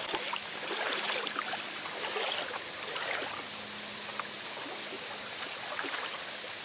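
Creek water splashing and trickling around a wading angler, with bursts of splashing, most in the first half, as a hooked brown trout thrashes at the surface.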